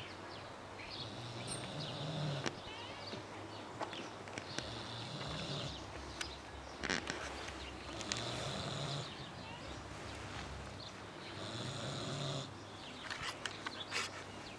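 A pig snoring in its sleep, one snore about every three seconds, with a few sharp clicks in between.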